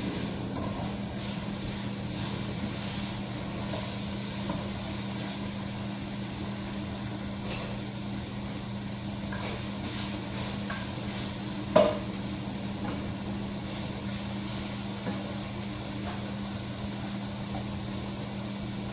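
Chicken and onions sizzling as they fry in a pan, with a steady low hum underneath. One sharp knock, a utensil against the pan, comes a little before halfway.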